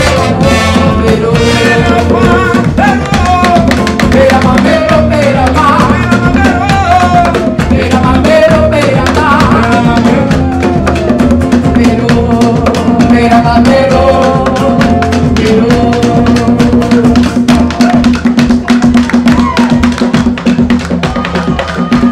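Live band playing Brazilian festa junina music: a singing voice over hand drums and percussion, with a steady beat. The singing is plainest in the first half.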